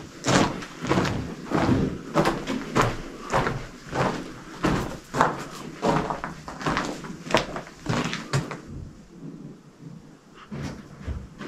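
Footsteps on loose stone rubble in a rock tunnel, about two steps a second, growing faint about eight seconds in.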